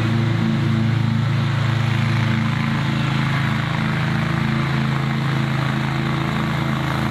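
Husqvarna V554 stand-on mower's carbureted Kawasaki FX751V V-twin engine running steadily as the mower drives across a lawn.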